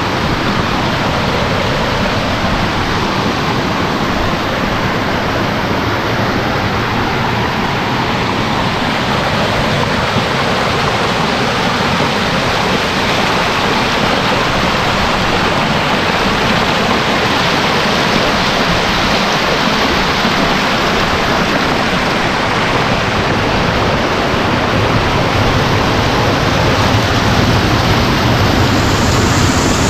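Water rushing over rocks in a small rocky stream and waterfall, a steady noise that grows a little louder near the end.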